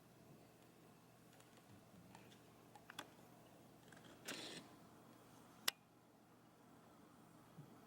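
Near silence: faint room tone with a low steady hum, a few soft clicks and one short soft hiss a little past halfway.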